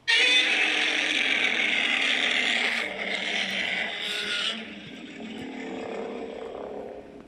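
Custom-made monster roar for a polar-bear kaiju: a loud roar that starts suddenly and holds for about four and a half seconds, then drops into a lower, quieter stretch that fades out near the end.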